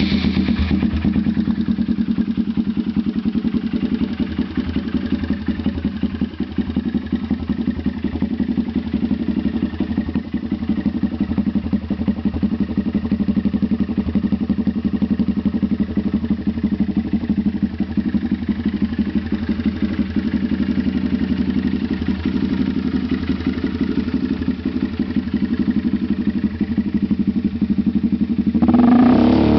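Honda Grom's 125 cc single-cylinder engine through a TOCE aftermarket exhaust, idling steadily just after starting. Near the end it is revved and grows louder.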